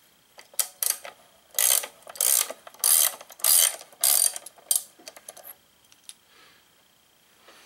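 Ratchet wrench being swung back and forth on a bolt, clicking in about five quick bursts with a few lighter clicks around them, then stopping about five seconds in.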